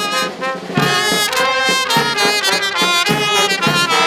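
Music playing: a quick melody of short, pitched notes.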